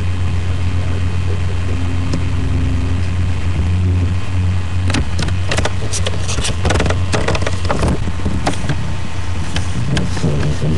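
A steady low hum, with a run of sharp clicks or taps from about five to eight seconds in and a few more near the end.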